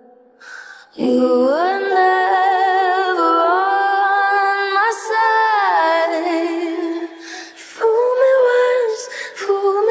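A woman's solo singing voice, an a cappella lead vocal isolated from the mixed track by phase inversion: after a quiet breath, a long note held with vibrato rises in pitch about a second in, then shorter sung phrases follow a brief pause near the end.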